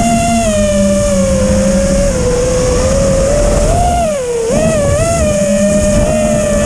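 6S FPV quadcopter's brushless motors whining through T-Motor propellers. The pitch rises and falls with the throttle, sagging briefly about four seconds in and then climbing again.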